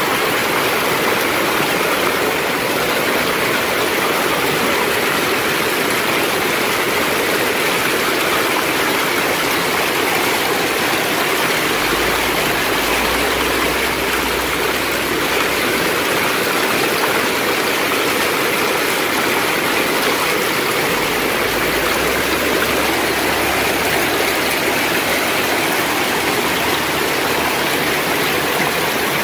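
Hail and heavy rain pelting pavement and parked cars in a steady, dense hiss. Low rumbles twice, from about twelve and about twenty-one seconds in.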